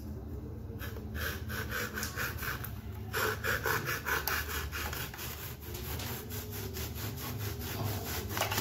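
Hand saw cutting through a wooden board with quick, even back-and-forth strokes, starting about a second in.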